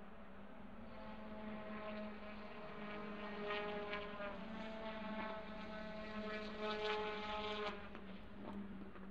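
Distant WTCC touring car engine heard across the circuit: its engine note builds in level over several seconds and drops away suddenly about three-quarters of the way through, over a steady low hum.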